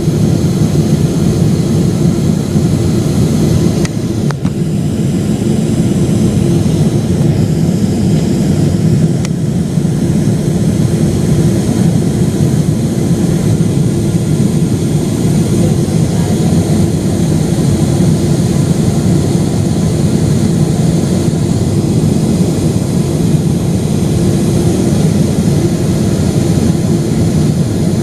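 Steady, loud cabin noise of a Boeing 777-300ER on its landing approach: a low rumble of airflow and jet engines with a steady hum running through it.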